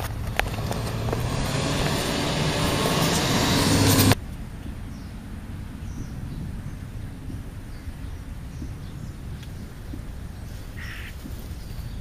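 A vehicle approaching on the road, its noise growing steadily louder for about four seconds until it cuts off abruptly. After that, quiet outdoor background with a few faint, short bird calls.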